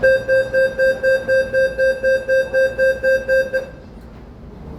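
Door-closing warning beeper of a Série 8500 train: a single high beep pulsing rapidly, about four times a second, for about three and a half seconds before stopping.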